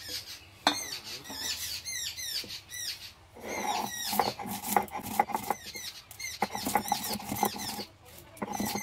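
Dry-roasted whole spices being coarsely crushed on a flat stone grinding slab (sil) with a stone roller (nora): gritty, rhythmic rolling and scraping strokes with seeds cracking, starting a few seconds in. Before the grinding starts, high, quick chirps repeat several times a second, with a sharp click under a second in.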